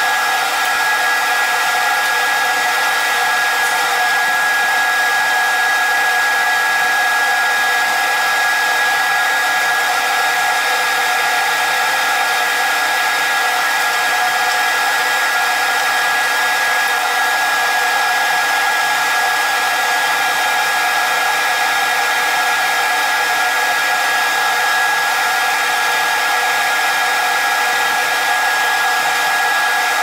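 Steady, blower-like running noise of workshop machinery with a constant high whine, unchanging throughout.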